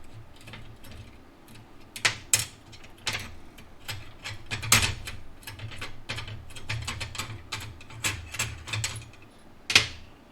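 Sherex hand rivet-nut tool being turned and handled while setting a rivet nut: irregular metallic clicks and clacks, with a few louder knocks about 2, 3, 5 and 10 seconds in.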